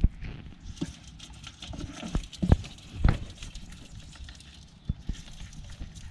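Aluminium bowls full of live catfish being handled and set down on the floor of a wooden boat: scattered knocks and thumps over a soft rustle. The two loudest knocks come about two and a half and three seconds in.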